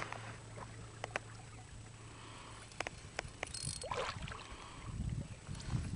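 Quiet water sounds with a few small clicks; about two-thirds of the way through, a brief splash as a hooked redfish thrashes at the surface beside the boat.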